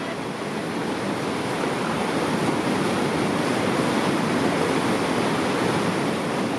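Fast mountain river rushing over rapids: a steady wash of whitewater noise that swells a little over the first couple of seconds.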